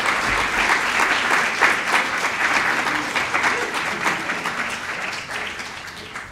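Audience applauding at the end of a talk, the clapping dying away over the last couple of seconds.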